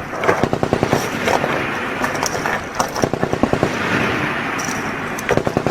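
Three short bursts of fully automatic fire from an M240B, a belt-fed 7.62 mm machine gun, at about ten rounds a second. The bursts come near the start, about three seconds in, and at the end.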